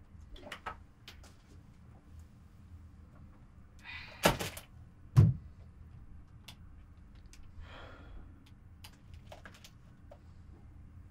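Small handling sounds at a desk in a small room: light clicks and taps. Two sharp thumps come about a second apart roughly four to five seconds in, the second the heavier and loudest. A short breathy rush of air comes just before them and again near eight seconds in.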